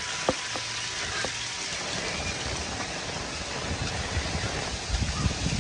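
Heavy tropical rain pouring steadily onto the ground, fences and roofs, with a few sharp ticks of drips in the first second or so. A low rumble builds near the end.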